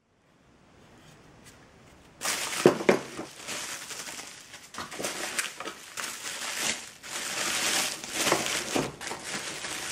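Near silence for about two seconds, then bubble wrap crinkling and crackling irregularly as hands pull it out of a cardboard box and handle it.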